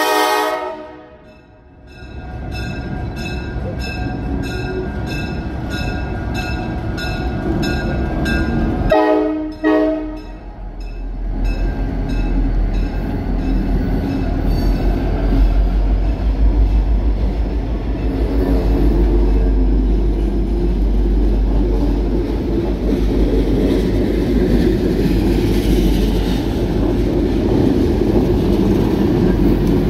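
Freight train led by a pair of HLCX GP40 diesel locomotives passing close by. The horn sounds at the start and cuts off within a second, then sounds again briefly about nine seconds in. In between, a bell rings about twice a second. From about ten seconds in the locomotives' diesel engines and the rolling freight cars make a loud, steady deep rumble.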